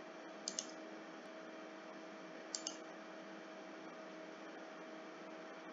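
Computer mouse clicking: two quick double clicks about two seconds apart, over a steady faint mains hum and microphone hiss.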